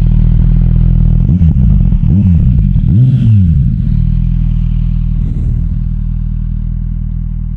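Kawasaki Z900 SE inline-four engine idling loudly through an SC Project aftermarket exhaust, with three quick throttle blips in the first few seconds that each rise and fall in pitch, then settling back to a steady idle that slowly gets quieter toward the end.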